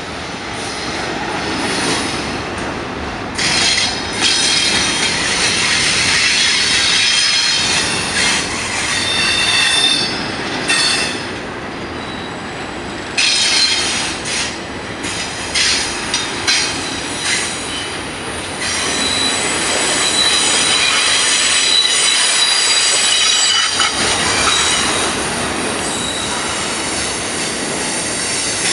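Wheels of double-stack container well cars squealing against the rail as a freight train rolls through a curve, over the steady rumble of the passing cars. The high-pitched squeal comes and goes in bursts, then settles into a steadier squeal for the last several seconds.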